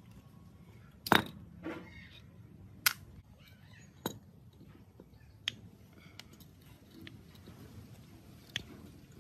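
Sharp metal clinks and knocks as a two-jaw bearing puller is handled and set on the steel shaft of an electric motor's rotor to draw off a bearing. About six separate strikes, the loudest about a second in.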